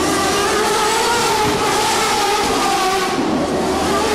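Indy race cars' turbocharged V8 engines running at speed as the cars pass on the circuit: a loud, steady, high engine note, several engine tones overlapping and shifting slightly in pitch as the cars go by.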